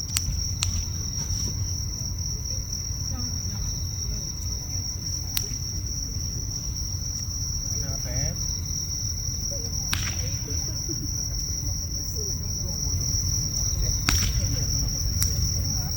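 Bonfire crackling with a few sharp pops, over a low steady rumble, while insects keep up one unbroken high-pitched trill.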